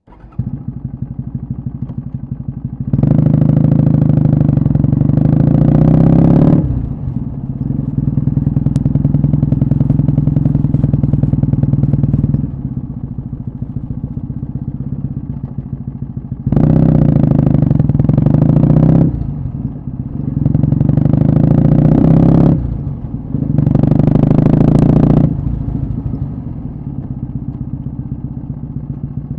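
Kawasaki W650's air-cooled vertical-twin engine running through short Yamato Stainless Cabton mufflers while the motorcycle is ridden. The exhaust note swells loud on the throttle several times and drops back to a quieter run between.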